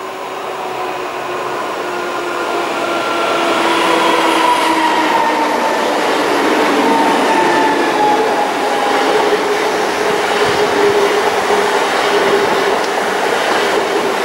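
PESA Dart ED161 electric multiple unit approaching and passing close by, growing louder over the first few seconds. Its wheels rumble and rush on the rails, with whining tones that slide slowly down in pitch as it goes by.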